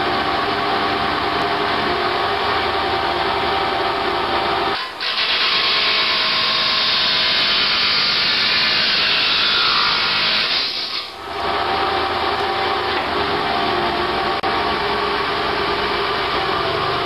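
Homemade chop saw with a 3 kW (4 HP) motor and a 400 mm abrasive cutting wheel, spinning steadily with a whine. About five seconds in, the wheel bites into steel and gives a harsh grinding hiss for about six seconds, sagging in pitch before it comes free. It then spins freely again.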